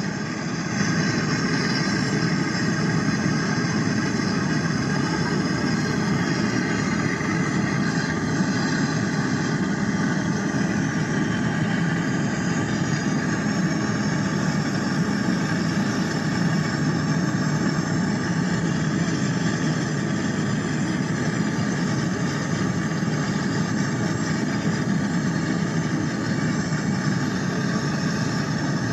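Brazing torch flame burning with a steady roar while copper pipe is heated for brazing. The roar gets a little louder about a second in.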